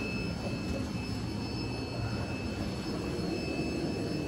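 Steady droning hum and hiss of aquarium equipment (air pumps and filters running on the shop's tanks), with a few faint steady high-pitched whines over it.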